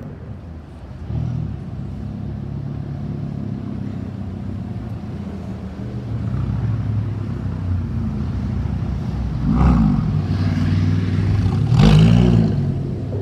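Lamborghini Gallardo's V10 engine running at low speed with a deep, steady note that grows louder as the car comes past. It gives two short revs near the end, and the second is the loudest as the car pulls away.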